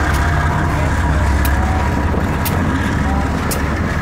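Freight train's diesel locomotives passing close by with a steady, heavy low engine rumble. Sharp clicks come about once a second from the wheels on the track.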